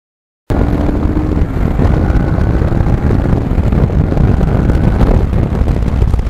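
Wind noise on the microphone of a motorcycle at riding speed, over the low running sound of a 2009 Kawasaki Ninja 650R's parallel-twin engine. The sound cuts in abruptly about half a second in.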